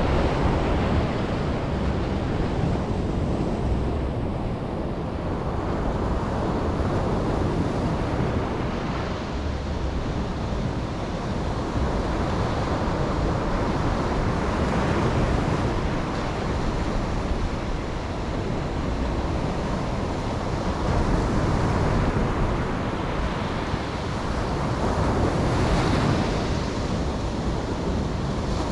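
Ocean waves breaking and washing on a beach, rising and falling in slow swells every few seconds, with wind buffeting the microphone.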